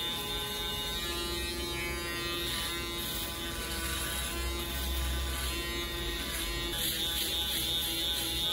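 Barber's cordless electric beard trimmer buzzing steadily as it is run over the face, cutting the beard down to zero for a clean shave.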